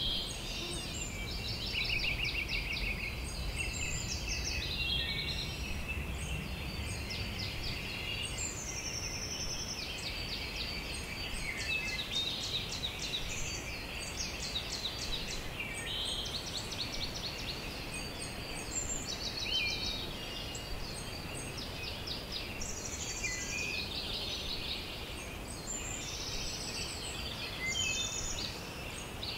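A chorus of wild birds singing and calling at once, with overlapping rapid trills, chirp series and short whistles, over a low rumble that fades out in the first ten seconds or so.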